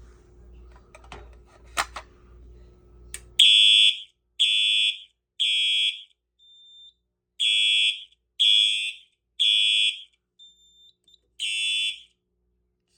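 Fire alarm horn driven by a Simplex 4004 panel, sounding the temporal code 3 evacuation pattern: groups of three short, loud, high-pitched blasts separated by pauses of about a second and a half, starting about three and a half seconds in after a few light clicks. A faint short high tone sounds in each pause.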